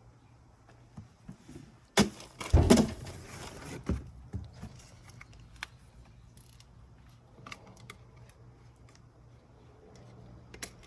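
A clatter of handling noise lasting about two seconds, starting about two seconds in, followed by scattered light clicks and taps.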